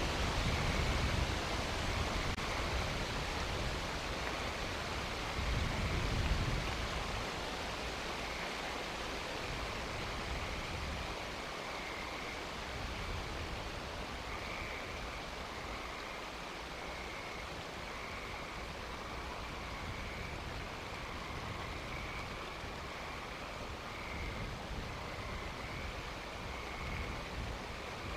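Outdoor night ambience: a steady hiss with a faint, pulsing night chorus repeating throughout. Low rumbles swell at the start and again about six seconds in.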